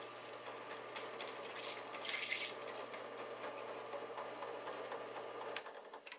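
Drill press motor running steadily as a screw drill and countersink bit cuts into plastic pipe, with a brief scratchy burst of cutting about two seconds in. The hum cuts off with a click near the end.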